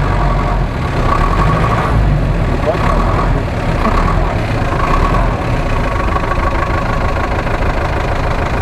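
GAZ-66 truck's engine running with a low rumble while the truck sits bogged in deep mud. The rumble eases about five seconds in.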